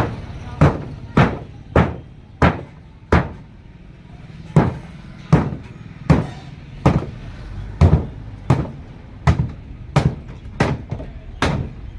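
Repeated heavy blows striking the body of an old refrigerator being broken open for scrap. There are about sixteen sharp strikes, roughly one every 0.7 seconds, each with a short ring, with a brief pause after the sixth.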